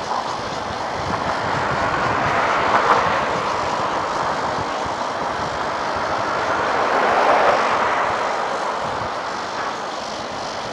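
Steady hum of distant road traffic, swelling twice as vehicles pass, about three seconds in and again around seven to eight seconds in.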